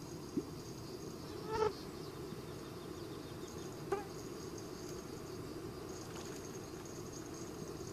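Insects chirring steadily in high-pitched bands, with two short pitched calls, one about a second and a half in and one about four seconds in.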